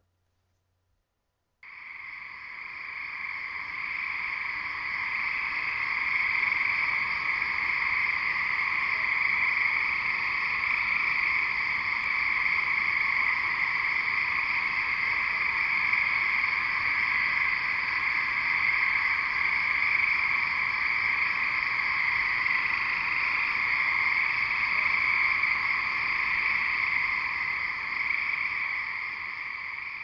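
Dense chorus of 17-year periodical cicadas, a steady buzzing drone that fades in after a short silence about two seconds in and then holds with a slight waver.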